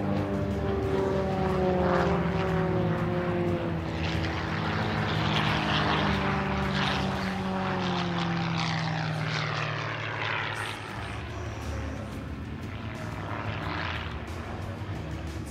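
Propeller plane's six-cylinder Lycoming engine, a GameBird GB1 flying aerobatics: the engine note slides down in pitch over the first few seconds and swings in pitch again around the middle of the manoeuvres. It grows fainter in the last few seconds.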